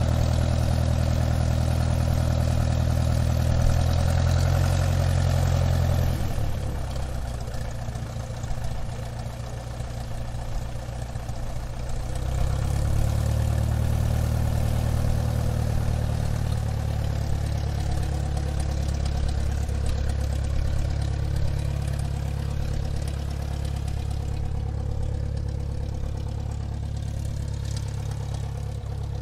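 Airplane engine running at low taxiing power, a steady low drone. It eases off about six seconds in and picks back up again about twelve seconds in.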